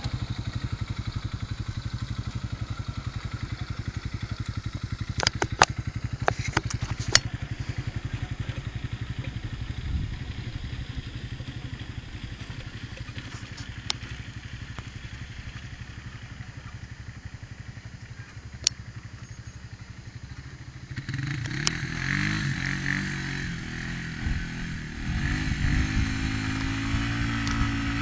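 Vehicle engine running steadily at low revs with a fast even pulse, with a few sharp clicks early on. About three quarters of the way through, an engine grows louder and revs up and down in surges, louder still near the end.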